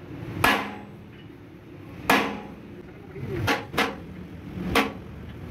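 Hammer blows on metal: five sharp strikes at uneven intervals, two of them in quick succession about three and a half seconds in.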